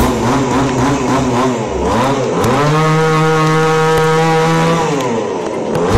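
Chainsaw engine: running at an uneven part-throttle speed, then revving up about two and a half seconds in and holding a steady high pitch for about two seconds as it cuts through a storm-felled tree, then dropping back near the end.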